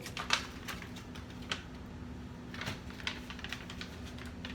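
Irregular light clicks and taps of hands handling kitchen items during food preparation, a few a second, with a faint steady hum underneath.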